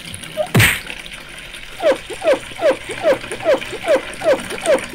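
Cartoon sound effects: a thump, then a rhythmic run of short, falling squeaks, about two and a half a second, like plates being rubbed squeaky-clean at a sink, over a faint running-water hiss.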